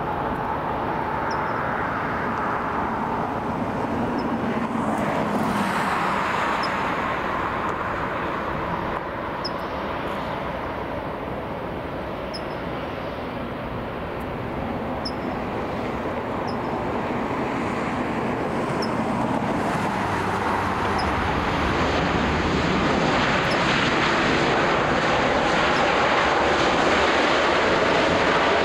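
Jet airliner engine noise: a steady rushing sound that dips a little midway, then grows steadily louder over the last third as the aircraft comes nearer.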